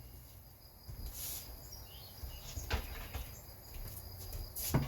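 Quiet kitchen handling: raw bacon pieces being laid into a stainless steel Instant Pot inner pot. There are a few soft clicks, the sharpest near the end, over a faint steady high-pitched tone.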